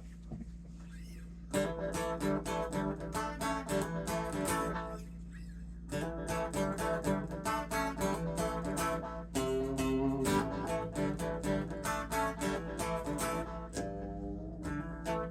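Mitchell MM100 electric guitar with aftermarket P-90 pickups played clean through a Fishman Loudbox Artist amplifier with echo: picked and strummed chords starting about a second and a half in, with a short pause around five seconds. A steady low hum sits underneath.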